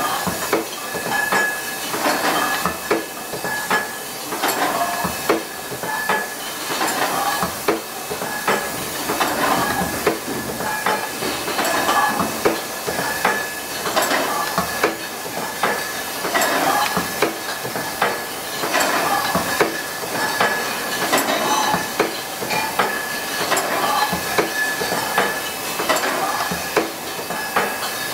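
Automatic rotary wine-bottling machine running: glass bottles clinking and clacking against the star wheels and guides as they are carried round the filler and corker, many times a second. A steady high tone runs under it, with a hissing swell every two or three seconds.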